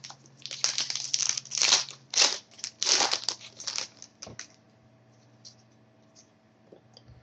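Trading-card pack wrapper crinkling and tearing as it is opened and the cards pulled out: a string of sharp rustles over the first four seconds or so.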